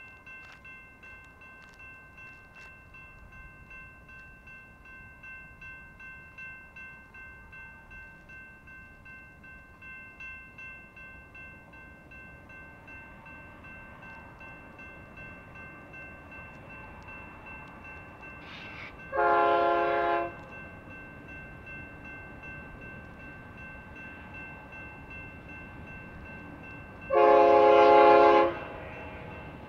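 Railroad grade-crossing bell ringing steadily with a rapid regular ding, while an approaching freight locomotive's air horn sounds twice: a blast of about a second roughly two-thirds of the way in, then a slightly longer one near the end. The horn chord is the loudest sound.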